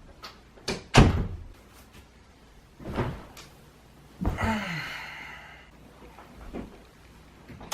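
A few separate knocks and thumps, the loudest about a second in, with one in the middle that rings on briefly.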